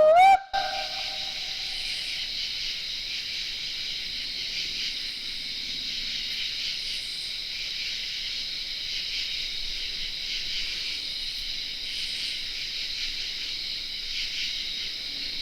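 Steady high chorus of night insects, crickets or katydids, trilling without pause. It opens with a loud pitched tone that rises in pitch and cuts off suddenly.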